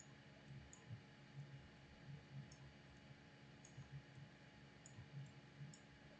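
Faint, irregular computer mouse clicks over a quiet background hum, a few times a second at most.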